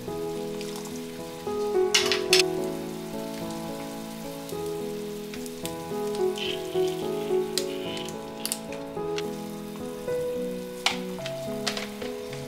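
Food sizzling in a frying pan, a steady hiss with a few sharp clicks of a utensil against the pan, over soft background music.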